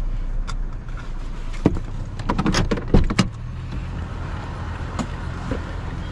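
Several sharp knocks and clatters of scrap being handled, with a loud cluster in the middle, over the low steady rumble of an idling vehicle.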